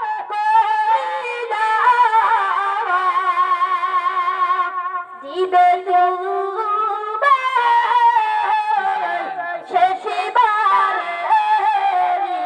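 A boy's high voice singing a Bengali gojol (Islamic devotional song) through a microphone. The notes are long, held and ornamented, with a short break for breath about five seconds in.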